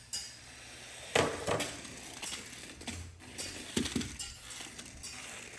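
Toy RC dune buggy going over a small ramp: a sharp knock a little over a second in as it hits or lands, then more clattering knocks near four seconds as it comes down on the hard floor.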